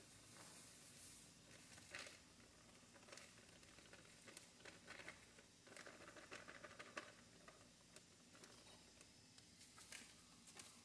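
Near silence, with faint scattered ticks and light rustling.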